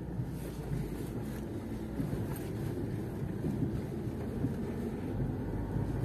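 Lada Niva Travel driving slowly over a rough dirt road, heard from inside the cabin: a steady low rumble of engine and tyres. The suspension makes no squeaks, because its silent blocks have been tightened.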